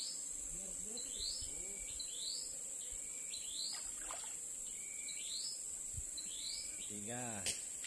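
A bird repeats a short rising chirp about once a second over a steady high-pitched insect drone. Near the end there is a brief human vocal sound.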